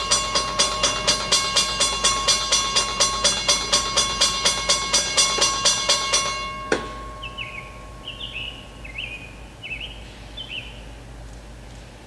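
Railroad grade-crossing bell ringing rapidly, about four strokes a second, then stopping abruptly about two-thirds of the way through. After it a bird chirps about five times over faint background.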